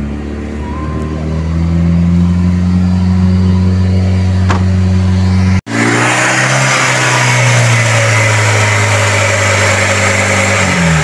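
Toyota Corolla's 2E four-cylinder engine running steadily with the air conditioning on. Its speed rises a little in the first two seconds and drops just before the end. In the second half a loud rush of air from the engine bay joins the engine sound.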